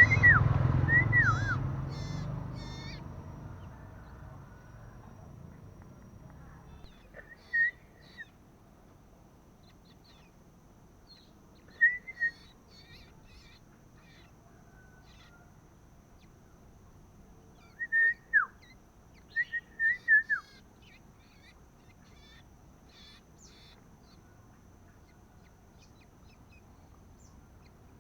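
Young male common iora giving short arched whistled calls, singly and in quick runs of two to four, with pauses of several seconds between, and faint high chirps in between. A low rumble fades over the first few seconds.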